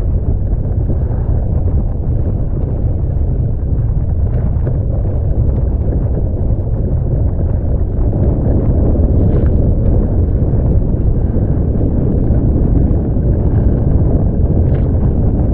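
Wind buffeting the microphone, mixed with the rush of water past an FX1 catamaran sailing fast in high wind: a steady, dense low rumble.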